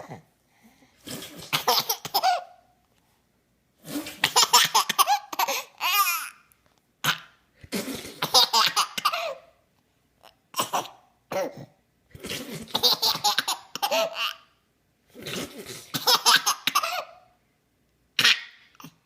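A person laughing in repeated fits a second or two long with short silent gaps between them, the laughter broken by hiccups.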